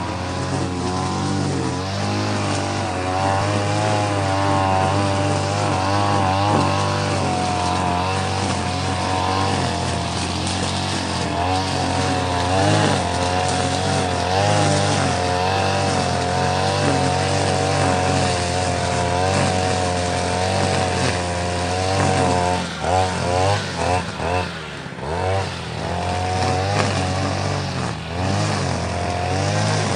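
Grass trimmer cutting grass, running steadily at high speed, its pitch wavering as the line meets the grass. About three quarters of the way through, it drops off and revs back up several times in quick succession.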